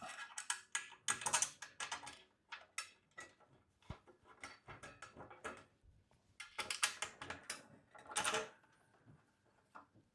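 Irregular clicks and clinks of bed-frame parts being handled and fitted: a hooked top bar going into its bracket, with bolts and nuts put in place, in several quick clusters.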